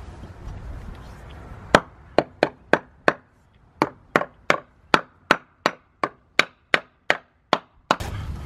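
A hammer knocking a wooden block into place under a PVC faucet pipe as a support: about seventeen sharp knocks at a steady two to three a second, with a short pause after the first five.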